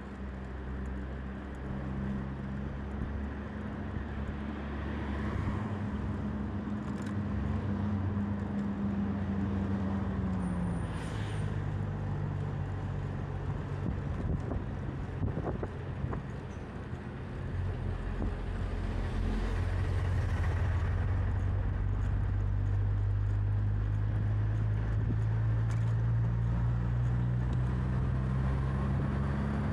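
Road traffic: motor vehicle engines running close by, a low steady hum that shifts in pitch as vehicles change. It grows louder a little past halfway, and the hum rises slightly near the end.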